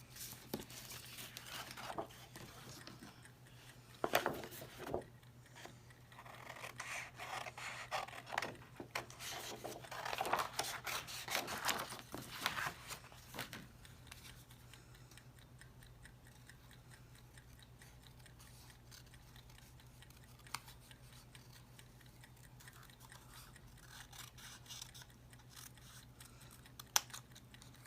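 Scissors snipping through scrapbooking paper, cutting around a traced bird shape. The cuts come thick and busy for about the first half, then thin out to occasional small ticks.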